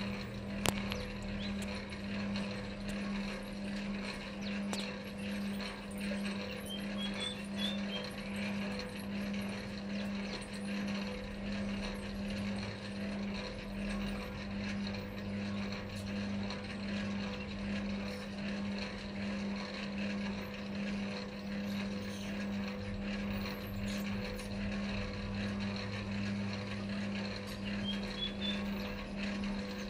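A steady low machine hum that pulses evenly, with one sharp click about a second in.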